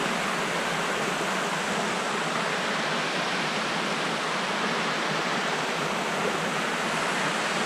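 Steady rush of water falling down a small waterfall.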